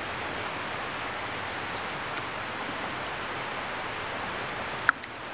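Steady outdoor background noise in woodland, with a few faint high bird chirps about a second in and a single short click near the end.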